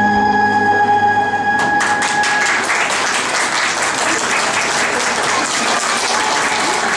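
Dance music ends on a held chord that dies away in the first couple of seconds, and an audience breaks into steady applause that carries on through the rest.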